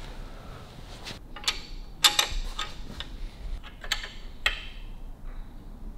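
Scattered metallic clicks and clinks of a spanner and engine mounting bolts being handled, about half a dozen of them, several close together about two seconds in.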